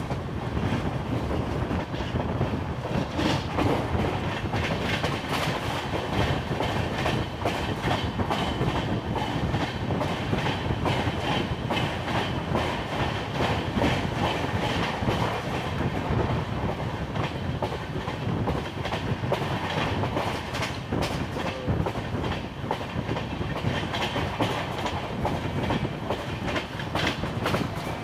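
Passenger train running at speed, heard from the open doorway of a coach: a steady rumble of wheels on the rails with a continual clickety-clack of wheels over rail joints.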